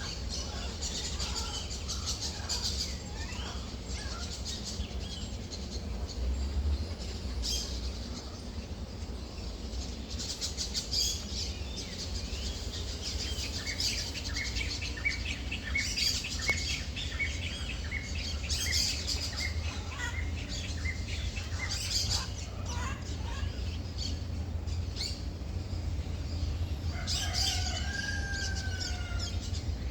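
Several birds chirping and calling, with quick high chirps throughout and a couple of longer, lower curved calls near the end, over a steady low rumble.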